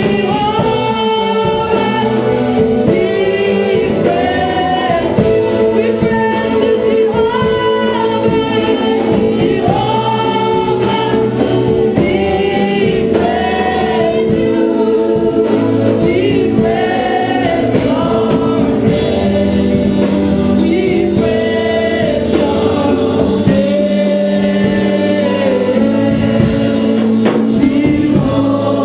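Live gospel praise-and-worship singing: a small group of male and female voices singing together over long held chords.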